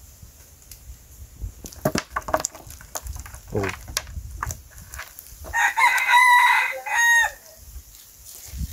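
A rooster crows once, about six seconds in: one long call that drops in pitch at the end. Before it comes a scatter of light clicks and knocks.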